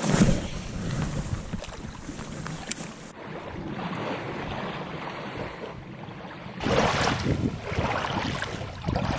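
Wind buffeting the microphone outdoors, a steady rumbling noise. It drops away sharply about three seconds in and comes back louder near the seventh second.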